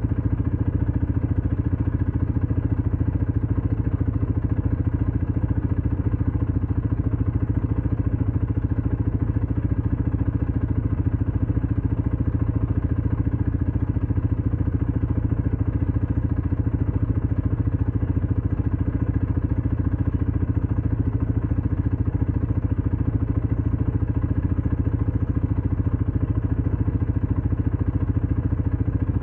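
ATV engine running at a steady speed, an even low drone that does not rise or fall.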